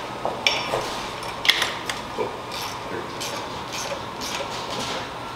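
Scattered metallic clicks and clinks at uneven intervals from work on a motorcycle's handlebar riser clamp as the bar is set in place.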